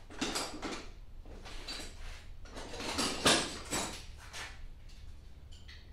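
Rummaging: hard objects and packaging clattering and rustling as parts are handled, in several separate bursts, the loudest a sharp knock about three seconds in.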